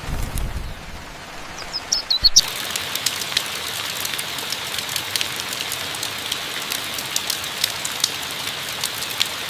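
A few high bird chirps about two seconds in, after a brief low rumble at the start. The sound then cuts abruptly to a steady hiss with many scattered sharp ticks, like rain pattering on a surface.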